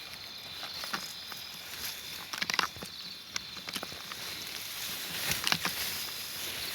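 Rustling and crunching through dry field vegetation in scattered clicks, with two louder bursts about two and a half and five and a half seconds in, over a steady high insect chirr.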